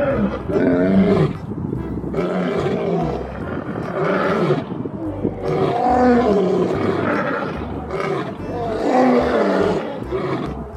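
Lion roaring repeatedly: a run of roars, each about a second long, with short breaks between them.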